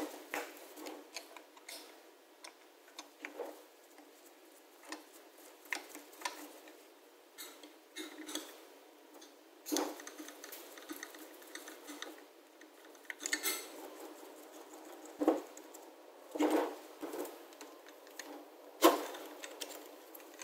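Screwdriver and small metal and plastic parts clicking and knocking against an old Stihl 015 chainsaw as its covers are unscrewed and taken off. The taps come irregularly, with a few sharper knocks among them.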